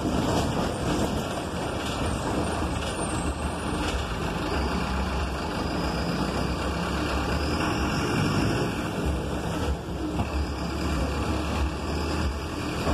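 City bus running and driving, heard from inside the cabin near the driver: a steady low engine hum with road noise.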